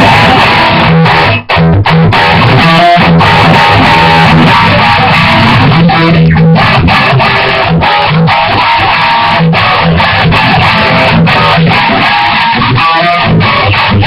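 Electric guitar in standard tuning playing a heavy metal riff, with short stops between phrases.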